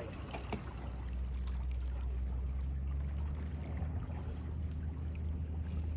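Seawater washing and trickling among the jetty rocks, with a steady low rumble under it.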